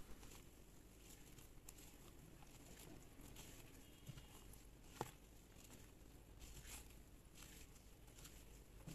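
Faint soft scraping and swishing of a silicone spatula folding flour into cake batter in a glass bowl, with one light tap about five seconds in.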